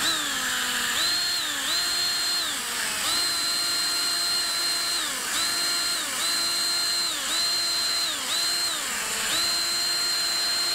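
Electric drill spinning a rubber decal-eraser wheel against car paint, stripping off vinyl sticker material. Its motor whine holds steady, then sags in pitch and climbs back, again and again about once a second.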